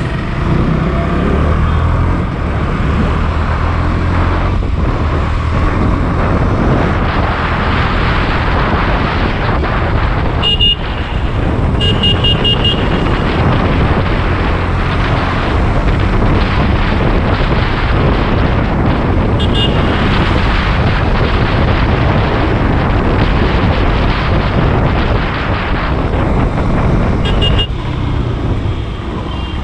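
KTM Duke 200's single-cylinder engine running as the bike is ridden through traffic, mixed with the rush of riding wind on the action camera's microphone. Brief vehicle horn toots come through a few times, about a third of the way in, around two-thirds through and near the end.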